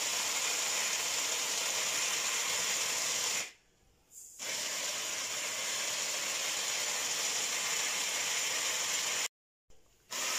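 Small electric grinder's motor running with a high whine as it grinds roasted eggshells into powder. It is run in two bursts, stopping for about a second a little over three seconds in, then starting again and cutting off near the end. It is pulsed rather than run steadily so the grinder is not damaged.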